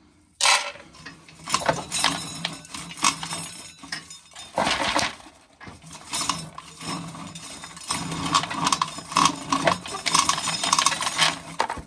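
Dry corn kernels being shelled off the cob, rattling and clinking as they fall into a container in uneven bursts of small hard clicks.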